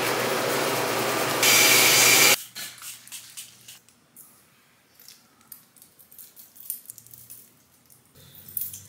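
Water running from a bathroom tap while teeth are brushed. The rush swells louder and brighter about a second and a half in, then cuts off at about two and a half seconds. After that come faint, scattered clicks of long fingernails tapping on a phone.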